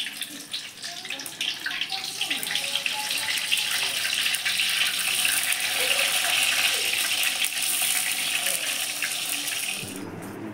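Pieces of tofu frying in hot coconut oil in a wok, a dense sizzling and crackling that builds over the first few seconds as more pieces go in. It cuts off suddenly about ten seconds in.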